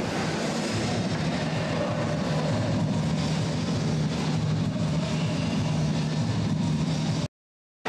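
A steady low drone under a noisy rumble, cut off abruptly by silence near the end.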